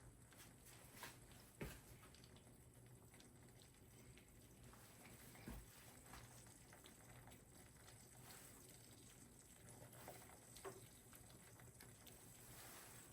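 Faint sizzling and crackling of eggs frying in butter in a hybrid nonstick frying pan, with scattered small pops and a few soft knocks.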